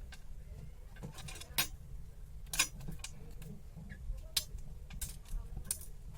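Small tools and parts being handled during an earphone repair: irregular light clicks and taps, about six in all, over a low steady hum.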